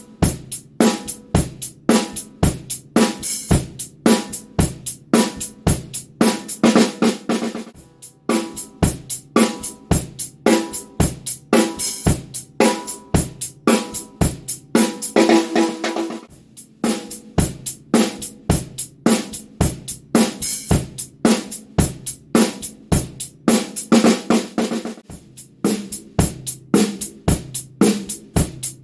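Drum kit played in a steady groove, the snare being a Tama Artwood snare with a coated Tama Evans head, with bass drum and hi-hat or cymbal strokes. The playing breaks briefly a few times between phrases.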